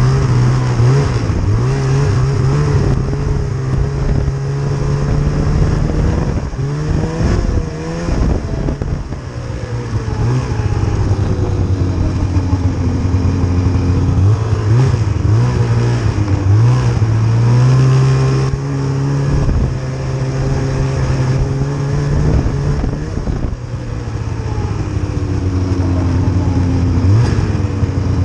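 Snowmobile engine running while riding, its pitch rising and falling repeatedly as the throttle is opened and eased off.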